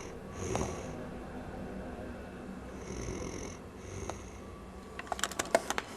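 A sleeping man snoring: two hissing snores about three seconds apart. A quick run of sharp clicks comes near the end.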